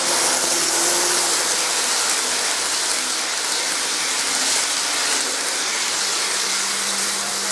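Steady loud hiss with a faint, wavering hum from an N gauge Kintetsu model train's motor and wheels as it runs past on the track.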